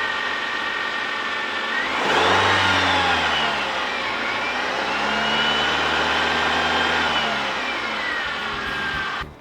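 Ford Escort engine running and revved twice, with a high whine that rises and falls with engine speed, then drops back to idle; the engine is running again after its battery and cables were replaced.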